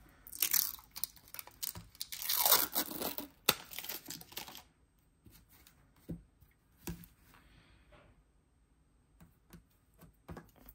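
Thin protective plastic film being peeled off a metal nail-stamping plate. It crackles and tears briefly about half a second in, then longer and louder from about two to four and a half seconds, with scattered light clicks and taps.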